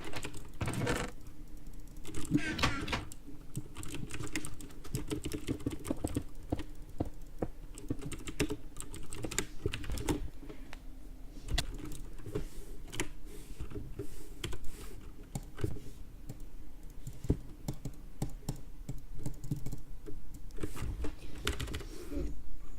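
Computer keyboard being typed on: a fast, irregular stream of keystroke clicks with no pauses.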